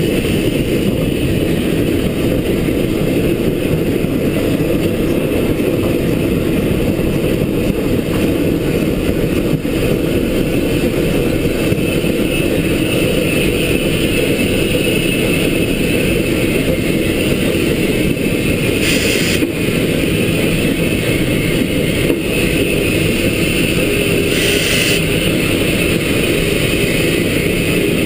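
Cab noise of LNER K4 No. 61994, a three-cylinder 2-6-0 steam locomotive, working uphill: a loud, steady rumble of exhaust and running gear. Two short bursts of hiss come about five seconds apart in the second half.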